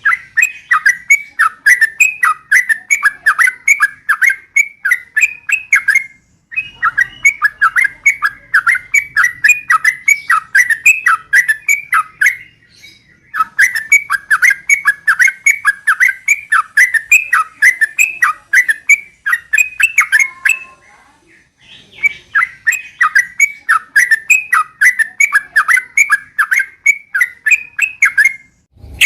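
Yellow-vented bulbul (trucukan) singing fast, repeated chattering phrases. Four bouts of about six seconds each are separated by short pauses.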